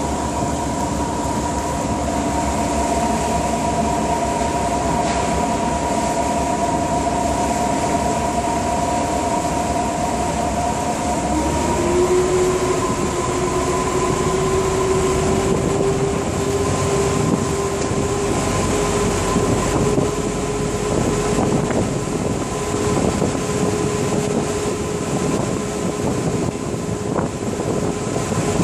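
A water taxi's engine running under way: a steady drone over a rushing noise, with several steady whining tones. One tone drops to a lower pitch about eleven seconds in and then creeps slowly upward.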